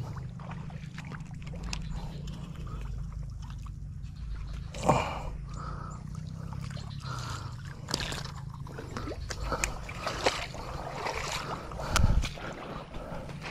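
Splashing and sloshing in shallow swamp water with rustling vegetation and small clicks, over a steady low rumble. A louder splash comes about five seconds in and a thump near the end.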